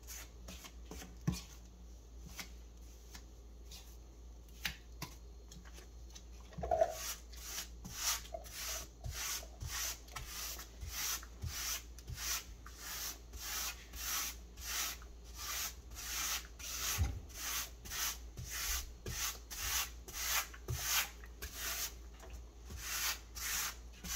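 Rubber grout float scraping across backsplash tiles, pressing grout into the joints in repeated strokes about two a second, starting about seven seconds in. Before that, a few faint scrapes and taps as a putty knife loads grout onto the float.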